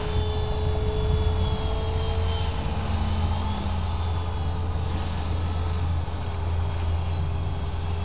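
EXI MA 450 electric RC helicopter flying at a distance: a steady low rotor hum with a few tones that drift slightly in pitch, and a faint high motor whine.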